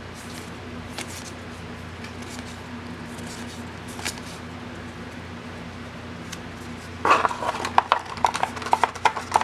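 Foil booster pack wrapper being torn open and crinkled, a quick run of sharp crackling clicks starting about seven seconds in, over a steady low electrical hum.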